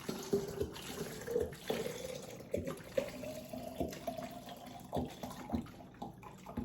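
A drink poured into a snowman-shaped container, splashing and gurgling, its pitch rising steadily as the container fills. The pour stops near the end.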